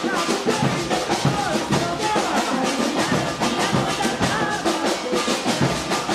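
Maracatu drumming, with alfaia bass drums and other percussion keeping a steady beat, and a voice singing over it.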